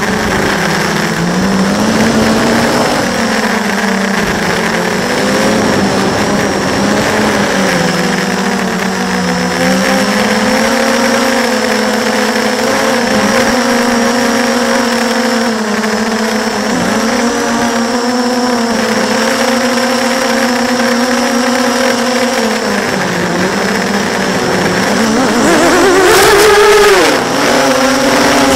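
Brushless motors and 6-inch propellers of an FPV quadcopter heard through its onboard camera: a steady droning whine whose pitch wanders up and down with the throttle. Near the end the pitch rises sharply and falls back as the sound gets louder.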